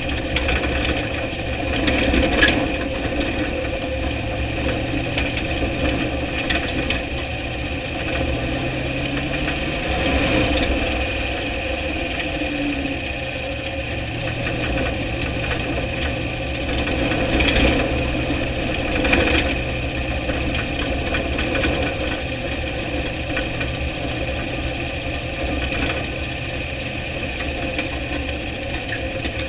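Dirt-track race car's engine running, heard from a camera mounted on the car, with its pitch rising and falling about ten seconds in.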